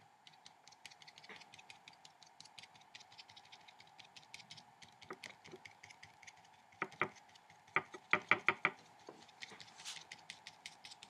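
Drawing tool tapping on paper in quick, light ticks, several a second, with a run of louder taps about seven to nine seconds in.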